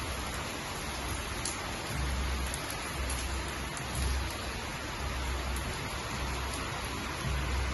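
Heavy rain pouring down on a city, a steady dense hiss, with a low rumble that swells and fades.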